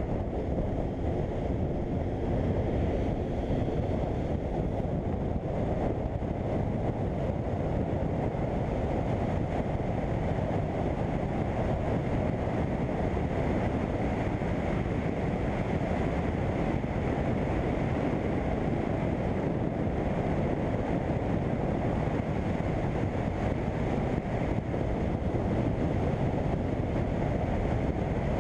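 Steady wind rush over the microphone of a BMW F800GS motorcycle riding at speed, with the bike's engine running underneath.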